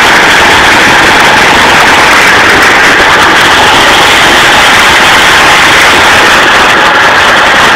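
Homemade outboard motor built from a lawnmower engine, running steadily and very loud, its propeller churning water in a barrel test tank.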